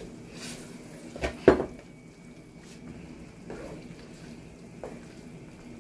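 A spoon stirring vegetables in gravy in a metal pot, scraping and knocking against the pot, with two sharper knocks about a second and a half in and a few lighter ones later, over the faint steady sound of the stew simmering.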